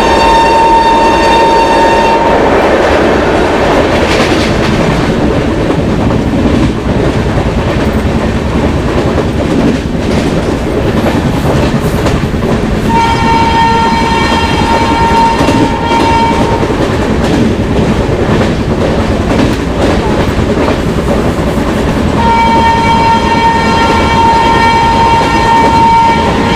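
WAP-7 electric locomotive's horn sounding three long single-note blasts over the steady running noise and rail clatter of the moving express train. The first fades out about two seconds in, the second comes about halfway through, and the third starts near the end.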